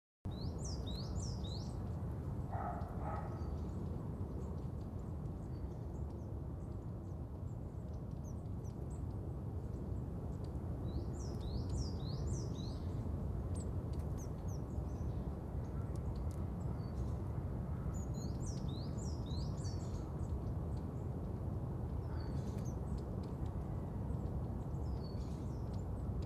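Small birds chirping in short flurries of quick, high, falling notes every few seconds over a steady low outdoor rumble, with one lower call about two and a half seconds in.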